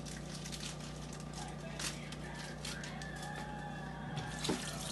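Kitchen clatter: scattered light clicks and clinks of cookware and utensils over a steady low hum, with a couple of louder knocks near the end.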